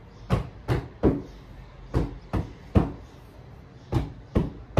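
Firewood being split: sharp chopping strikes on wood, three in quick succession, a pause, then three more, and the start of a third run.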